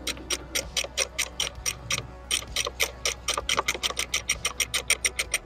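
Socket ratchet clicking in a fast, even run as a master cylinder mounting nut is loosened off the brake booster stud; the clicks quicken near the end.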